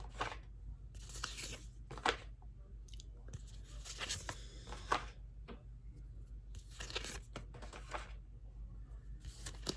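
Paper cards of an oracle deck being handled and flipped through: short dry rustling and scraping bursts, a few per several seconds.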